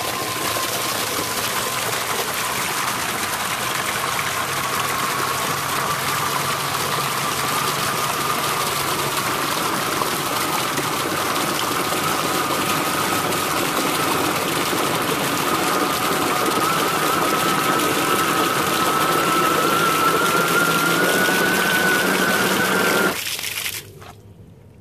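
3D-printed RC snow blower's electric motor and ABS-geared transmission running under load while its impeller throws water out of a tub: a steady spraying gush with a motor whine that climbs slowly in pitch toward the end. It stops suddenly about 23 seconds in.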